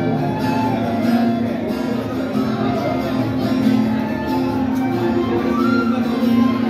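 Live music: a side-blown flute playing a melody over guitar accompaniment.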